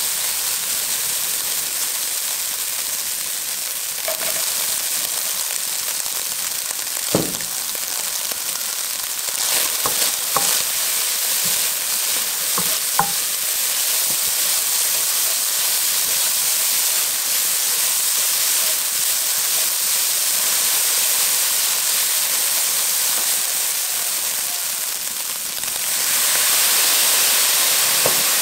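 Ground chicken sizzling in a hot nonstick wok as it is stirred with a silicone spatula, with a few light knocks along the way. Near the end the sizzle grows louder as the sauce is poured in.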